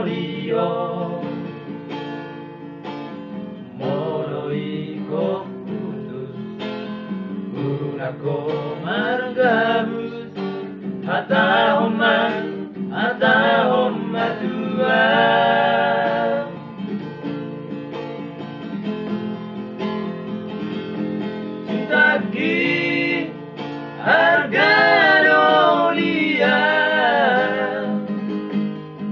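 Classical (nylon-string) guitar strummed while men sing a song together.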